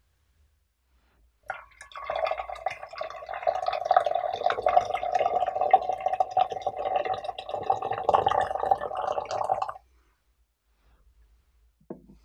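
Water poured in a steady stream into a glass pitcher of green tea leaves, running about eight seconds and stopping abruptly. A small knock follows near the end.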